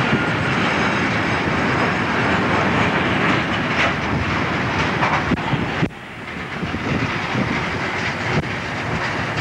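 Freight train of loaded flat wagons rolling past close by, wheels clicking over the rail joints. The sound drops suddenly about six seconds in and carries on more quietly.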